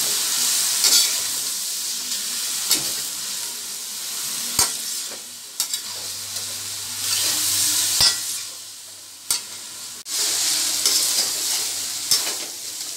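Chowmein noodles and vegetables sizzling in a hot metal kadhai as they are stir-fried. The hiss swells and fades with each toss, and a metal spatula knocks and scrapes against the pan about seven times.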